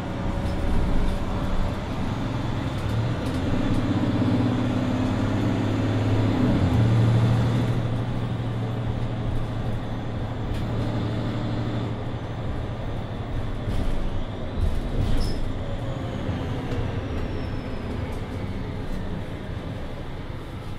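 Mercedes-Benz Citaro II city bus under way, heard from inside: the diesel engine pulls, its note dropping about seven seconds in and then climbing again. The engine eases off after about twelve seconds, with a few rattles and a falling whine as the bus slows.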